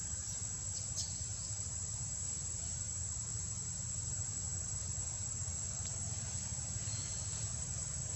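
A steady high-pitched drone holding one pitch, over a low rumble, with a couple of faint clicks.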